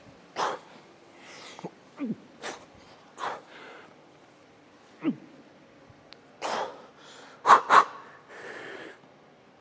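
Sharp, forceful breaths, hissing exhales and short grunts from a man straining through pull-ups with a 50 kg plate hanging from his belt. The breaths come every second or so, with two loudest bursts close together about three-quarters of the way through, then a longer, softer breath.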